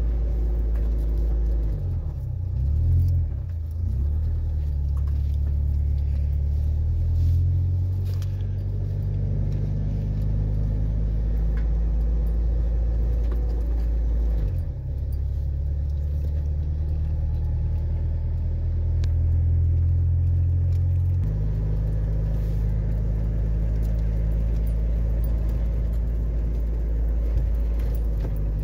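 Ford Ranger's 2.3-litre four-cylinder engine running through a Thrush glasspack exhaust, heard from inside the cab while driving. The engine note rises, dips briefly about halfway through as the manual gearbox is shifted, and changes again about two-thirds of the way in.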